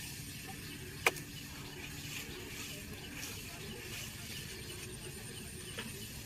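Faint rustling and crackling of a fish-trap net being handled by hand, with one sharp click about a second in, over a steady low hum.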